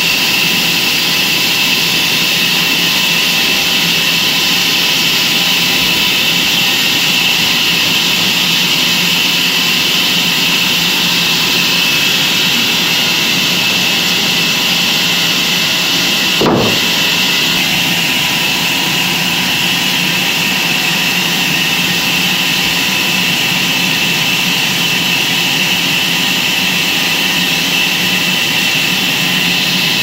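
Electric band sawmill running steadily, an even mechanical noise with a strong high hiss. There is one brief knock a little past halfway.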